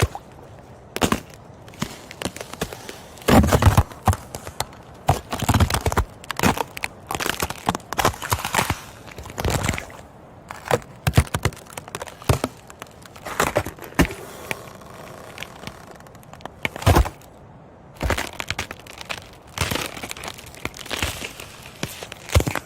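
Ice cracking and crunching: a long, irregular run of sharp cracks and short crunching bursts.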